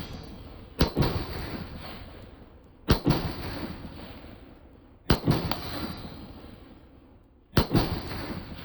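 Shots from an AR-15 pistol with a 7.5-inch barrel, fired at a steady pace about two seconds apart, the last two as quick doubles. Each sharp crack trails off in a long echo.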